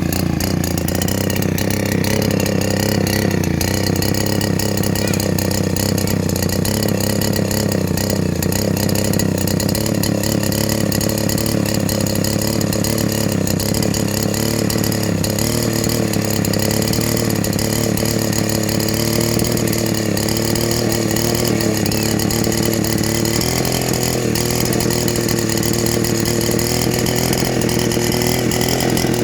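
Vintage Hungarian Kismotor és Gépgyár KL-150 chainsaw's two-stroke engine running at a steady speed, its pitch holding even throughout.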